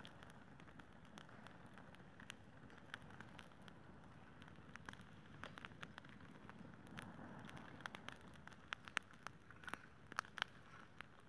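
Campfire burning, with faint irregular crackles and pops of the burning wood over a low hiss. The pops come thicker and louder near the end.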